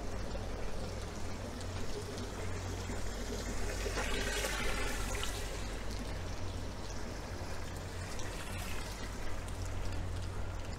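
Rainwater running and trickling over steady rain on the street, with a swell of louder hiss about four seconds in that fades again.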